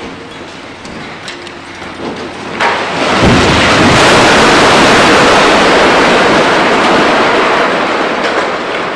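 Concrete rubble falling down through a gutted high-rise under demolition: scattered clattering, then about three seconds in a heavy crash and rumble of debris swells up, holds for several seconds and slowly dies away.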